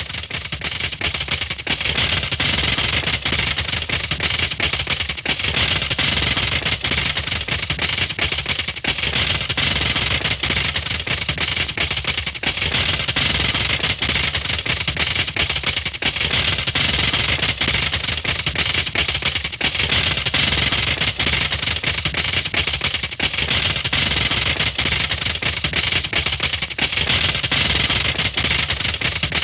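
A dense, continuous clatter of rapid sharp cracks, like automatic gunfire, running on without a break.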